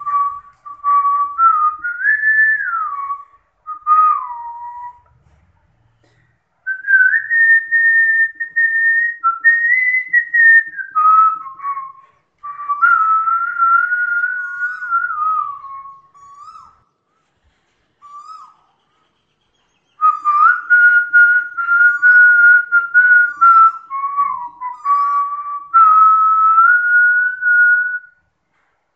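A person whistling a song melody, one clear note at a time, stepping and sliding between notes, in phrases broken by short pauses.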